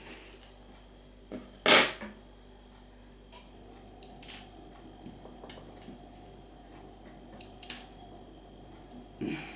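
A few sharp metallic clicks and clinks of small lock parts being handled as a Mul-T-Lock MT5 cylinder is taken apart, the loudest clink about two seconds in.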